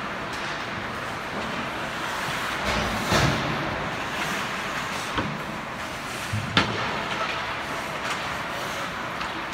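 Ice hockey play in a rink: a steady wash of skates and game noise, broken by sharp knocks about three seconds in and about six and a half seconds in, the second one the loudest.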